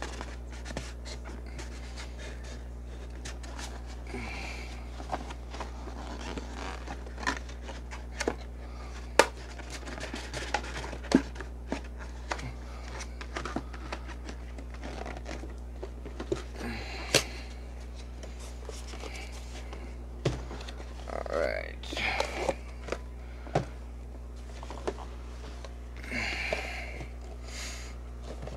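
Hands opening a sealed Yu-Gi-Oh! Legendary Duelists Season 3 card box: scattered sharp clicks and taps from the cardboard and packs being handled, with a few spells of plastic and cardboard rustling, over a steady low hum.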